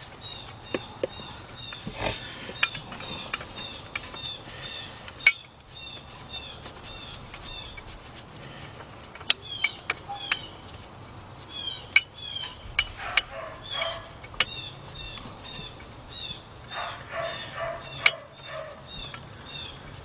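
A bird chirping over and over, short high chirps about twice a second, with sharp metallic clinks of hand tools now and then.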